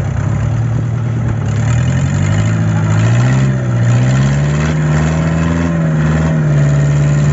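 Fishing boat's engine running steadily, its pitch drifting up and down several times as its speed changes.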